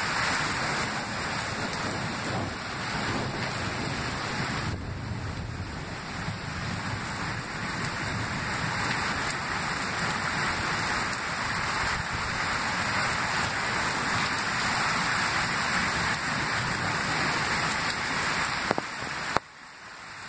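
Heavy thunderstorm rain pouring steadily, a dense even hiss that drops away suddenly near the end.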